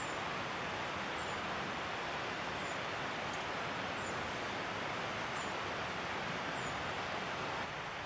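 Steady rushing of a mountain stream, a little quieter near the end, with a small bird giving a short, high call about once every second or so.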